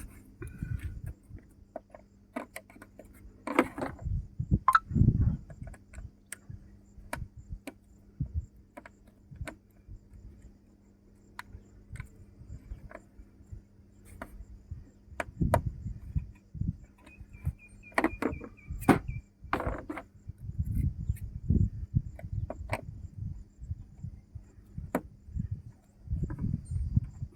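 Irregular clicks, knocks and rattles of hands and tools handling scooter parts, with heavier thumps mostly in the second half, over a faint steady low hum.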